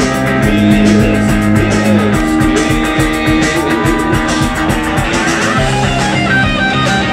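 Live rock band playing a guitar-led passage: electric guitars holding notes over a steady drum beat.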